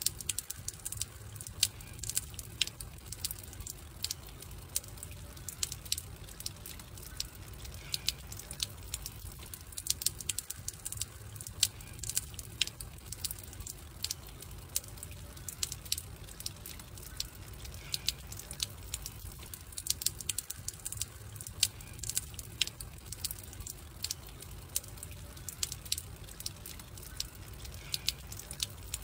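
Wood campfire crackling, with irregular sharp pops and snaps over a low, steady rumble of burning. The pattern repeats about every ten seconds, like a looped recording.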